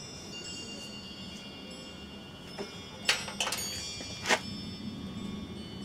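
Wind chimes ringing, their high tones overlapping, with a few sharp clicks and knocks about two and a half to four and a half seconds in.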